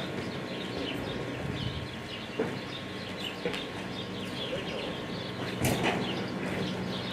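Hooves of a loping reining horse landing softly on deep arena dirt, with one heavier thud late on, over a steady low hum and faint bird chirps.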